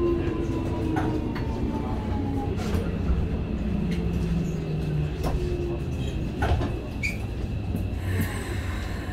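Keikyu 1000 series train's Toshiba IGBT-VVVF inverter and permanent-magnet motors, heard from inside the car: a whine falling in pitch over the running rumble as the train brakes to a stop at a platform. The whine fades out about five seconds in, followed by a few clicks and a short hiss near the end.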